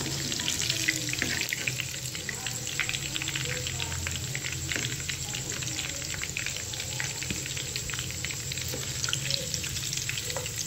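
Egg-coated chicken pieces shallow-frying in hot oil in a nonstick pan: a steady sizzle full of fine, rapid crackles.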